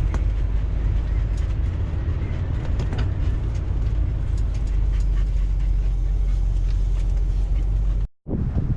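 Inside the cabin of a 1990 Fleetwood Bounder Class A motorhome on the move: a steady low rumble of engine and road, with scattered light clicks and rattles over it. It cuts off abruptly near the end.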